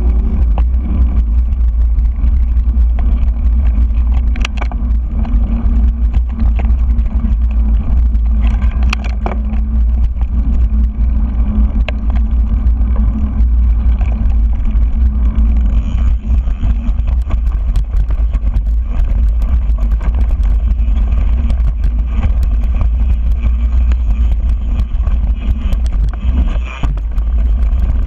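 Mountain bike rolling along dirt singletrack, heard through a GoPro's microphone: constant wind buffeting and rumble from the tyres on the trail, with scattered clicks and rattles from the bike over bumps.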